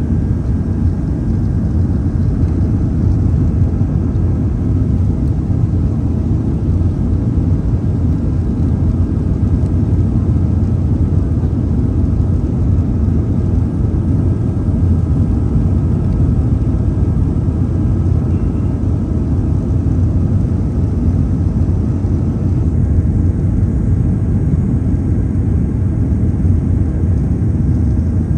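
Steady cabin noise of a Boeing 737-500 airliner in flight: an even, deep rumble of engines and airflow, with faint steady tones above it, as the aircraft descends toward landing.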